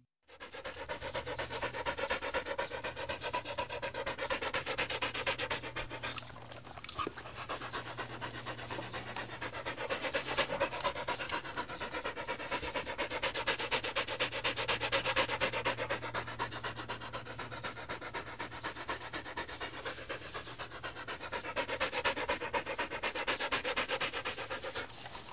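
A dog panting quickly and steadily, the panting swelling louder and softer a few times.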